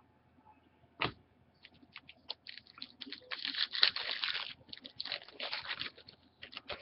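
Crinkling and rustling of trading-card pack wrappers and cards being handled, with a sharp click about a second in and dense crackling through the middle.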